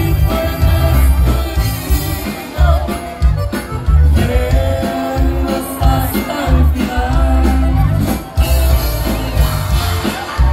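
Tejano band playing live, a man singing over accordion, guitar and drums, with a strong, heavy bass.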